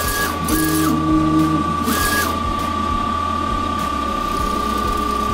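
Procolored F13 Pro DTF printer printing its nozzle check test page. The printhead carriage's motor whines and whirs steadily, with short whines that rise, hold and drop back each time the carriage speeds up and slows down in the first couple of seconds.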